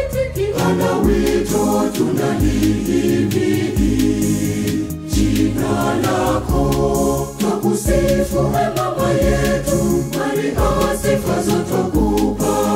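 Choir of women's and men's voices singing a Swahili hymn to Mary in harmony, over a backing track with a bass line and a steady beat.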